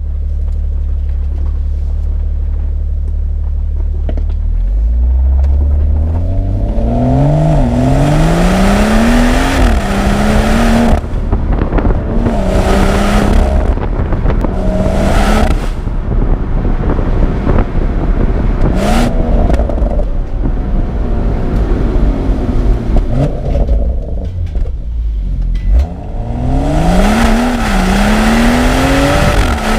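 BMW M240i's turbocharged straight-six idling, then accelerating hard through several quick upshifts of its automatic gearbox, the engine note climbing and dropping back at each shift. The highest revs bring a louder rushing roar, and there is a single sharp crack partway through.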